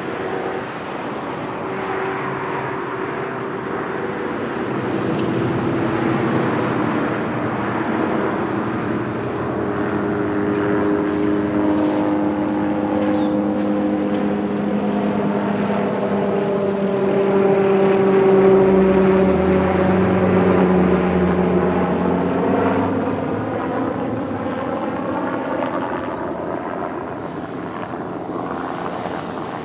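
Small quadcopter drone flying overhead, its rotors humming in several tones that drift in pitch as it moves. The sound swells to its loudest a little past halfway and takes on a sweeping, phasing quality as the drone's height changes.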